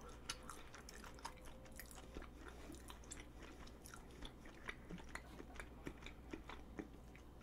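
Faint chewing of a strawberry chapssaltteok, a glutinous rice cake filled with sweet red bean paste and a whole strawberry: soft, irregular mouth clicks.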